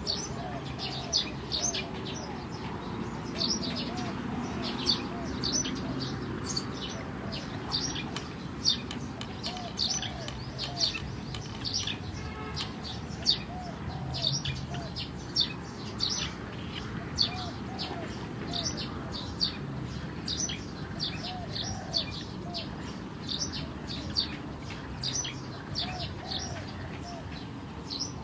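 Birds chirping: many short, high notes, often in quick runs of several, with softer, lower calls beneath.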